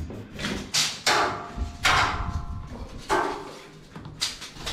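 Solid wooden kitchen cupboard being handled and lifted: a series of about five knocks and bumps of wood, spread over a few seconds.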